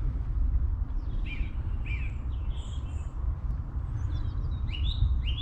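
Small birds chirping and calling repeatedly in short quick notes, over a steady low rumble.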